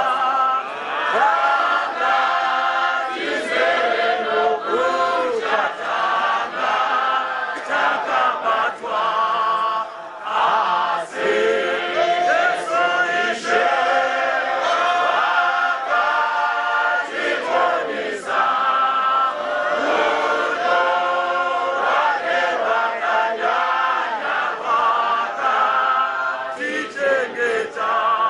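A choir of voices singing a gospel hymn together, continuous throughout.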